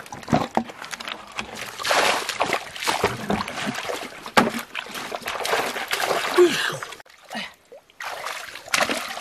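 Irregular splashing and sloshing in shallow muddy water: feet wading, water poured from a bucket, and hands grabbing at fish. The sound drops out briefly about seven seconds in.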